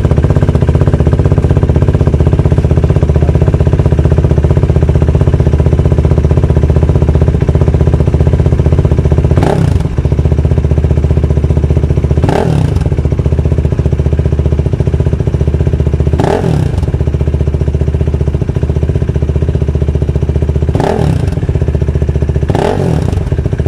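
KTM Duke 390's single-cylinder engine through a MIVV titanium exhaust with its dB killer fitted, idling steadily. From about ten seconds in, five quick throttle blips each rev it up and drop it straight back to idle.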